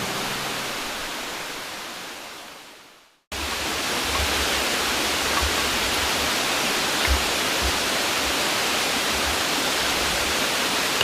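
Background music fades out over the first three seconds, into a moment of silence. Then a steady rushing noise cuts in and holds, with a few faint low thumps.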